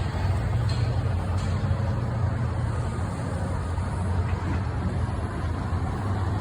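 Train running past with a steady low diesel engine rumble, and two faint clicks in the first second and a half.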